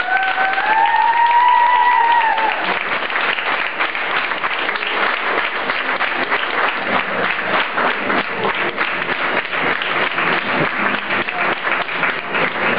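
Audience applauding, with one long cheer rising over it and held for the first two seconds or so.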